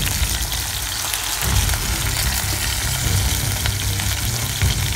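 Chicken drumsticks sizzling as they fry in hot oil in a pan, a steady crackling hiss, with background music underneath.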